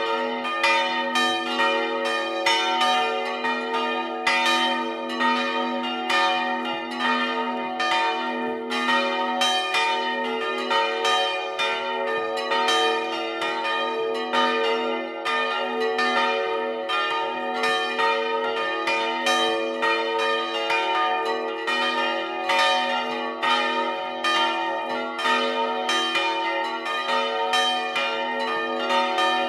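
A peal of several swinging church bells ringing together at close range, their strikes overlapping and the hum tones sustaining between them. This is most likely the full ring of the tower's four bells, tuned b¹–e♭²–f²–b², which range from about 345 kg down to 44 kg.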